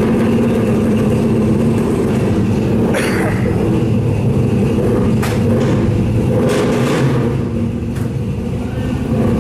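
Show cars' engines idling steadily, with a few short clicks or knocks over the running.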